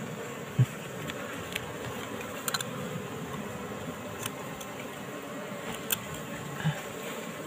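Steady buzzing hum of a wild Asian honeybee (Apis cerana) colony around its opened nest, with a dull knock about half a second in and several sharp clicks as the knife and hand work the comb against the rock.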